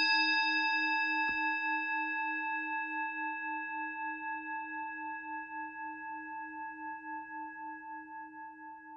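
A singing bowl struck once, ringing on and slowly dying away, its tone wavering in a slow pulse.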